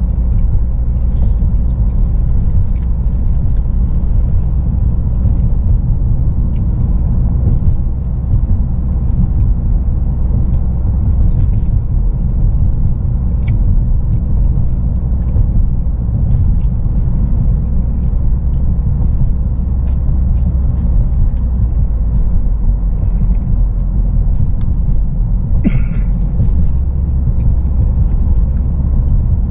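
Steady low rumble of road and engine noise inside the cabin of a moving Ford Focus, with one short click near the end.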